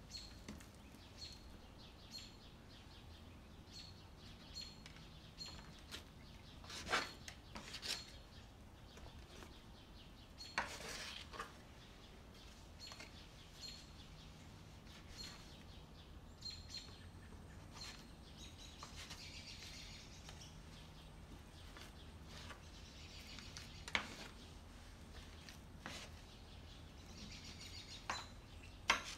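Quiet handling of bread dough on a marble work surface: a knife cutting through the dough and tapping the marble, and dough pieces being pulled apart and set down, with a few sharper knocks scattered through. Faint high chirps repeat in the background.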